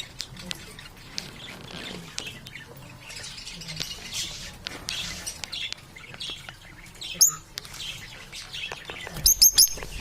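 Birds chirping and calling in short high notes, with one loud sharp call about seven seconds in and a quick run of three or four loud calls near the end.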